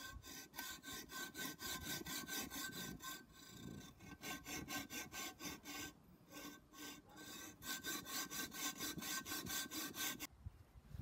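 Hacksaw cutting by hand through an aerated concrete (AAC) block: a quick, rhythmic back-and-forth rasp of the blade, with two short pauses, stopping shortly before the end.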